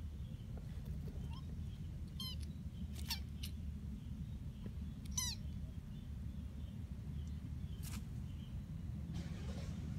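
Kitten mewing: three short, high-pitched mews a little after two, three and five seconds in.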